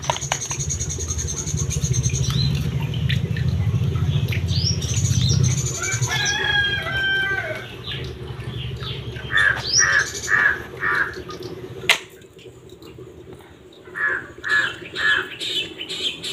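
Birds calling in the yard: scattered chirps, plus two short runs of about four repeated calls in the second half. A low rumble runs under the first few seconds, and there is a single sharp click about twelve seconds in.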